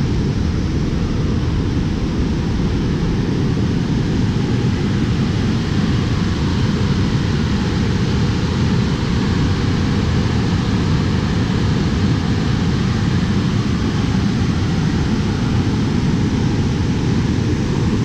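Water pouring over the Wawa Dam spillway: a steady, loud, deep rush of falling and churning water.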